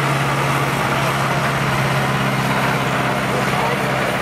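Valtra farm tractor's diesel engine running under heavy load at a steady pitch as it drags a weight-transfer pulling sled.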